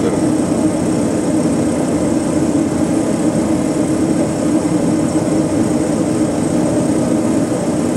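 Turboprop engine running steadily just after start, its gas generator settled at about 63% in ground idle with the propeller still feathered, heard from inside the cockpit.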